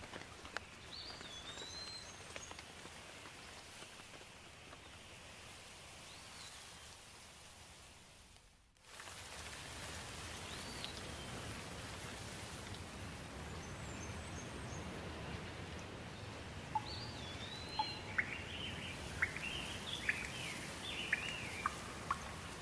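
Steady rain hiss with birds chirping now and then in short rising-and-falling calls. About eight seconds in the sound fades almost to silence and comes straight back, and in the last few seconds the birds break into a flurry of quick, sharp chirps.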